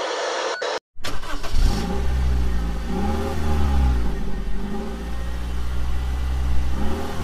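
A hiss cuts off within the first second. Then an engine starts idling steadily and is revved about four times, its pitch rising and falling with each rev.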